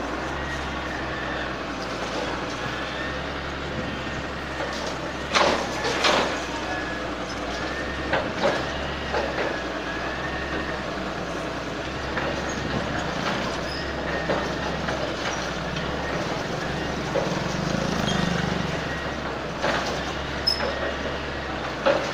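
Diesel engine of a Hitachi EX100W wheeled excavator running steadily while it demolishes a building front, with several sharp knocks and crashes of falling masonry.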